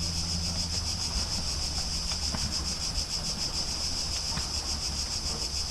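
Cicadas singing in a dense, steady high-pitched chorus. Beneath them a low steady hum fades about halfway through.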